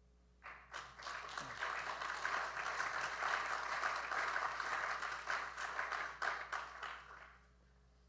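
Audience applauding at the end of a lecture: many hands clapping, starting about half a second in and fading out near the end.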